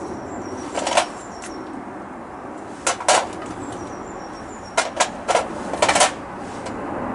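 Old motorcycle brake pads being handled and sorted to find a matched pair: hard metal-backed pads clacking and knocking against each other, a few single knocks followed by a quick cluster of about five.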